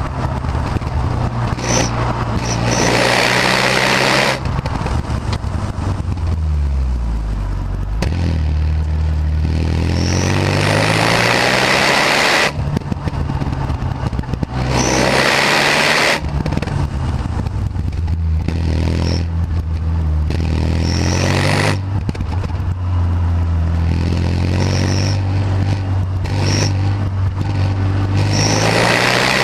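Renault Mégane R26's turbocharged 2.0-litre four-cylinder on its stock exhaust, under way: the engine note falls and rises several times as it is driven through the revs, broken by stretches of loud rushing noise.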